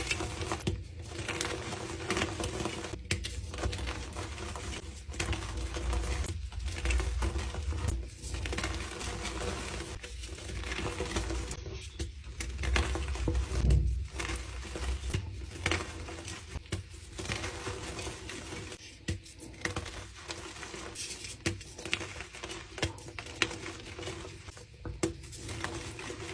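Blocks of dyed gym chalk being crushed and crumbled: a dense, crisp crunching and crackling that stops briefly every second or two, then starts again.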